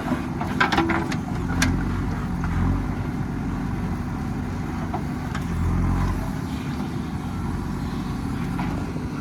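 Diesel engine of a digging machine running steadily, its drone swelling briefly twice as the load comes on. There are a few sharp clanks in the first two seconds.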